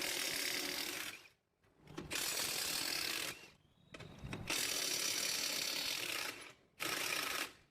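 Tool work on tractor axle parts: about five bursts of harsh rasping, mechanical noise, each one to two and a half seconds long, separated by short gaps.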